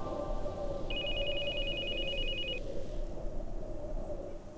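Mobile phone ringing: one electronic trill of rapid two-tone pulses, starting about a second in and lasting under two seconds.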